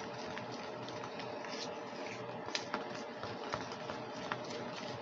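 A spoon stirring thick orange glaze (confectioner's sugar mixed with orange juice) in a dish: faint scraping with a few light clicks of the spoon against the dish, over a steady faint hum.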